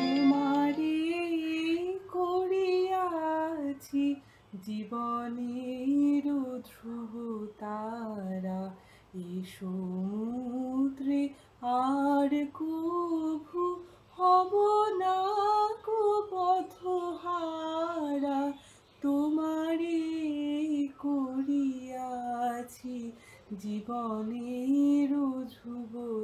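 A woman singing solo and unaccompanied: a slow melody in phrases of a few seconds, with held, wavering notes and short breaks between phrases.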